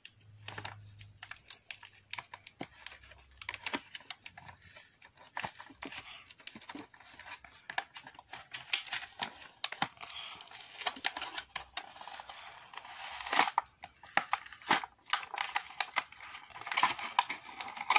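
A toy car's clear plastic blister pack and cardboard backing card crinkling and tearing as the package is pulled open by hand. Irregular crackling and small clicks, loudest about halfway through and again near the end.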